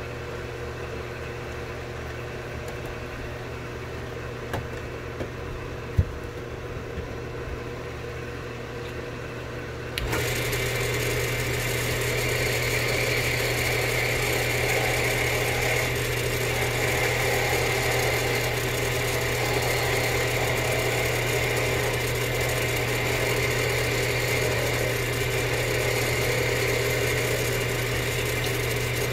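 An electric workshop machine motor running steadily with a low hum. About ten seconds in, the sound steps suddenly up to a louder, fuller whir, which then holds steady. There is a single sharp click about six seconds in.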